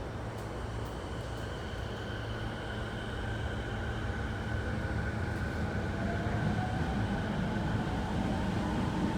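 Toei 10-300 series electric train running, with steady rumble and the whine of its traction motors and inverter. A tone rises slowly in pitch and the sound grows louder over the second half as the train accelerates.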